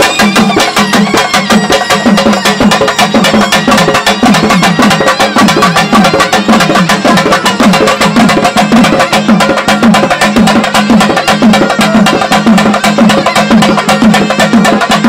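Loud, fast drumming with clattering percussion, a dense stream of rapid strokes that keeps up without a break.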